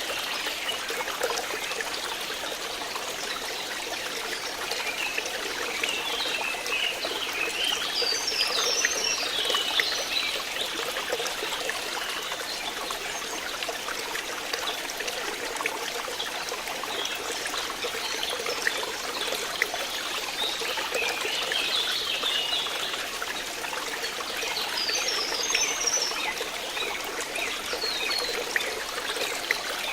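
Running water trickling and flowing steadily, with a constant babble of small splashes.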